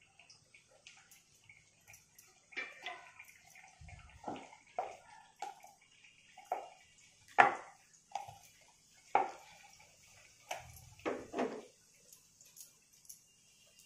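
Rolling pin knocking and clattering against a round rolling board as puri dough is rolled out: about a dozen irregular knocks, the loudest about halfway through, over a faint steady hiss.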